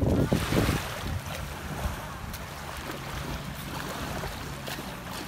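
Wind buffeting the microphone for about the first second, then a steady wash of small lake waves lapping at the shore.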